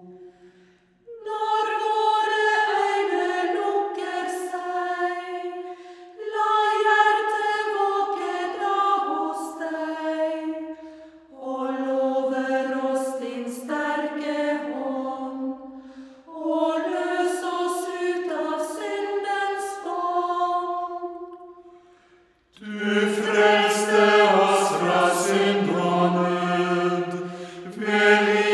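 Unaccompanied voices singing a slow Norwegian hymn melody, phrase by phrase, with short breath pauses between phrases. About 22 seconds in, lower voices join and the singing grows fuller.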